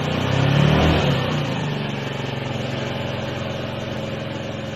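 Honda Zoomer's 49cc four-stroke scooter engine revving up once in the first second, then dropping back to a steady idle.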